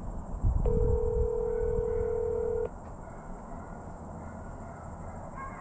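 Handheld two-way radio sounding a steady electronic tone for about two seconds, with a click as it starts and as it cuts off. Low wind or handling rumble on the microphone at first.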